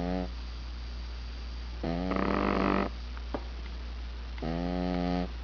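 A cat snoring: an even, pitched snore roughly every two and a half seconds, the one about two seconds in with a harsher rasp on top.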